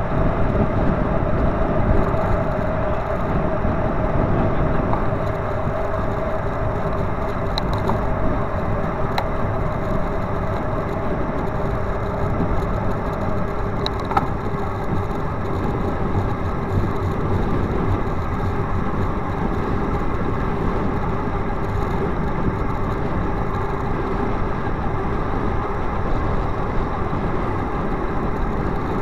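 Steady road noise heard from a bicycle riding through a road tunnel: traffic and tyre rumble with a steady hum, and a few faint ticks.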